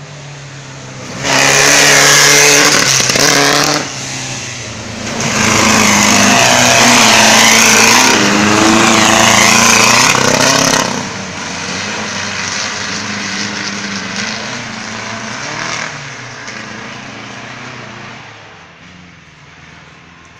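Air-cooled flat-four engine of a VW 1600-class off-road racing Beetle, very loud at full throttle close by. It lifts off briefly about four seconds in, comes back on hard for several seconds, then cuts off sharply and fades away as the car drives off.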